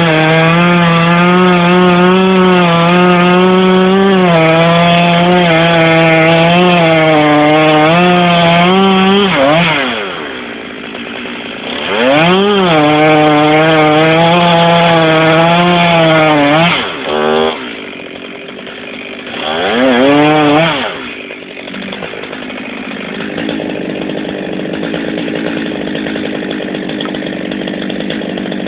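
Two-stroke chainsaw running at full throttle, cutting wood, then dropping to idle about nine seconds in. It is revved hard again for about four seconds, blipped twice more, and then left idling.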